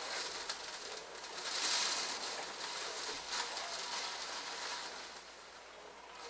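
Thunderstorm rain with gusting wind: a steady hiss with scattered drop ticks, swelling about a second and a half in and easing off near the end.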